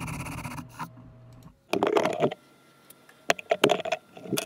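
Ryobi cordless drill spinning a hole saw through plywood, a steady motor whine that stops about a second in. Then a run of sharp wooden clacks and knocks around two seconds in, and a few more near the end, as the drill is set down and the plywood piece and bench clamp are handled.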